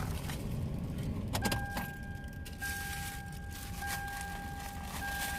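A car's electronic warning chime: a steady high tone that starts right after a click about a second and a half in and keeps sounding, with a low rumble inside the car's cabin.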